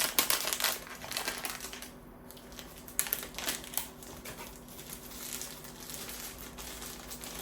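Blind-box packaging crinkling and rustling as it is handled and pulled open, in bunches of crackles at the start and again about three seconds in, with quieter handling between.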